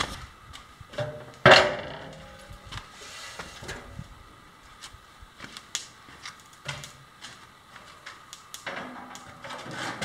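Long metal beams and tubes being handled and stood on end. One loud clang with a short ring about a second and a half in, then lighter knocks and clatter, and a scraping near the end.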